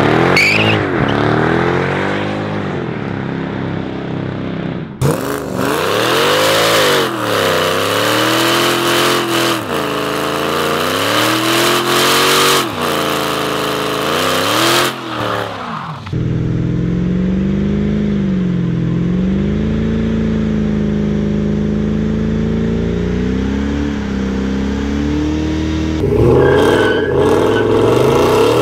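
Mercedes-Benz W211 E-Class AMG V8 engines in several short clips one after another. They rev hard up and down over and over, then hold at high revs through a burnout, wheels spinning.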